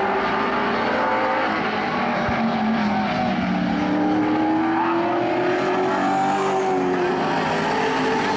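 Several pro stock race cars' V8 engines running hard in a close pack, their pitches rising and falling against each other as the cars accelerate and lift around the oval.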